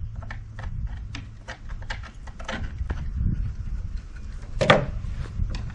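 A run of light knocks or taps, about three a second, then a single louder knock near the end, over a steady low rumble.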